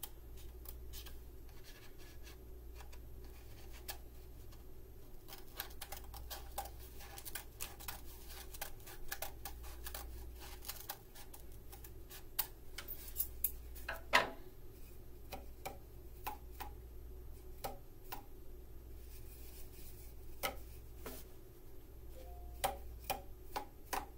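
Scissors cutting a cardboard paper towel tube: a string of irregular snips, clicks and rustles, one sharper snap about halfway, over a steady low hum. The tube is being trimmed shorter to raise its pitch.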